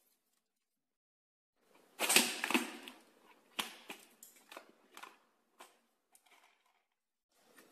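Metal parts of a children's trike being handled and fitted together: after about two seconds of silence, a loud scraping rattle, then scattered light clicks and knocks.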